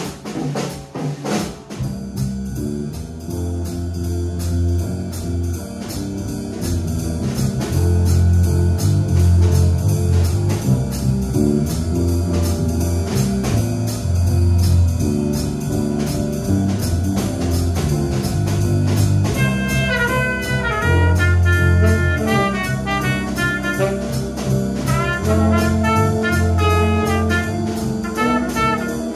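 Small jazz band playing: drum kit keeping time over a repeating low bass line, with brass and saxophone. About 19 seconds in, a quick, stepping melody line comes in on top.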